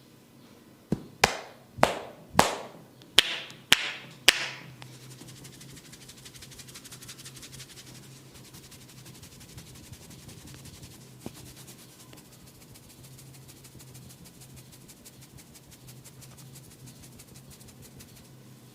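Head massage by hand: seven sharp slaps on the head in about three and a half seconds, then a quieter, fast, crackly run of fingers rubbing and scratching through the hair and scalp.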